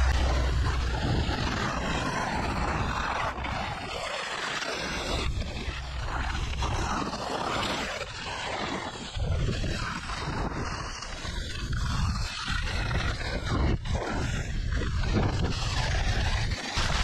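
Wind rushing over the microphone together with the scrape and hiss of skis sliding over hard, icy snow during a downhill run, rising and falling in waves.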